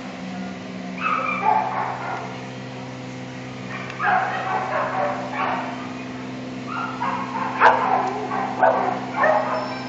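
A dog yipping and barking in three bursts of short cries, over a steady low hum.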